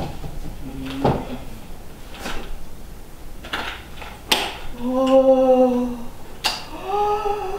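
Short hisses and clinks as a seltzer spritz is made at the table, then a woman's voice singing two long held notes, the first about five seconds in and the second near the end.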